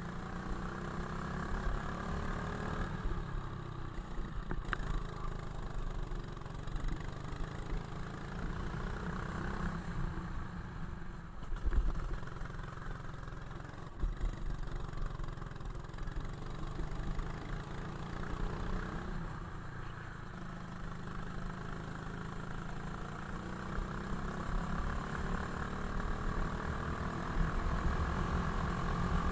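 Go-kart engine heard from a camera on the kart, its pitch rising and falling as the driver accelerates out of corners and lifts off into them, over a steady low rumble. There is a louder thump about twelve seconds in.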